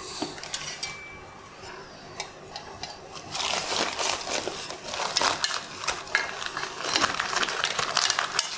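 A plastic protective film over a press brake's bottom die, crinkling and rustling as it is handled and repositioned, dense from about three seconds in, with a few light clinks of a sheet-metal part being handled.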